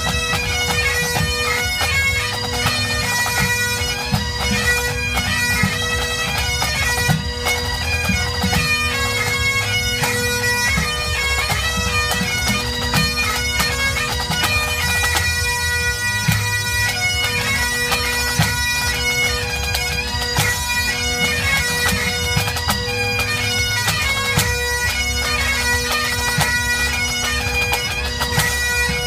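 A full pipe band playing: Great Highland bagpipes sounding steady drones under the chanters' melody, with the drum corps' snare and tenor drums beating along.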